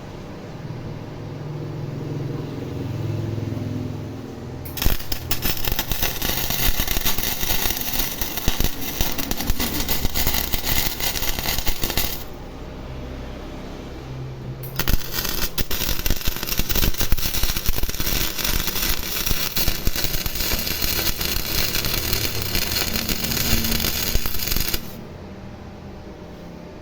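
MIG welder arc crackling in two long runs, about seven and then ten seconds, with a low machine hum before, between and after. This is a test weld on a Daiden MIG welder whose wire-feed motor has just been repaired, with the wire feeding again.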